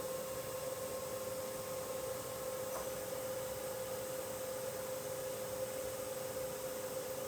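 Spindle of a 2001 FANUC Robodrill α-T14iB machining centre turning at a steady speed, giving an even, steady whine over a light hiss.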